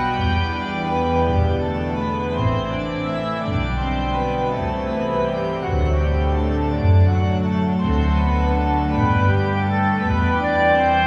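Instrumental background music: held keyboard chords over a bass line that moves to a new note about once a second.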